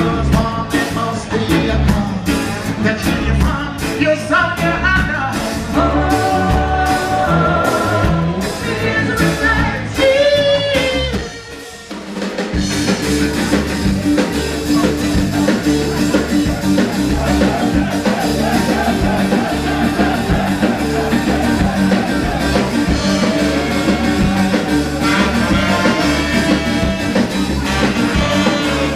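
Live ska band playing amplified in a club: drums, bass, guitar and singing. The music drops away for a moment about twelve seconds in, then the full band comes back in.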